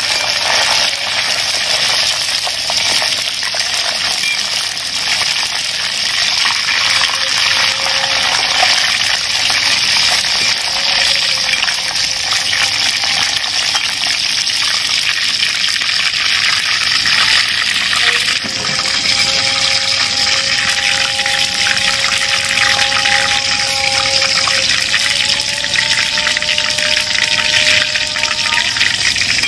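Green leaves deep-frying in hot oil in an iron kadai: a loud, steady sizzle that runs on as they are stirred with a perforated metal skimmer.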